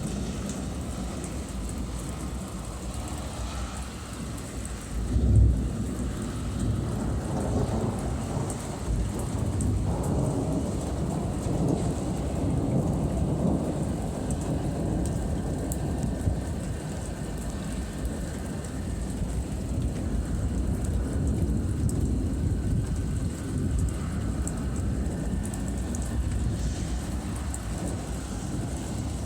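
Thunderstorm: steady rain falling, with a sharp, loud thunderclap about five seconds in, followed by long rolling rumbles of thunder.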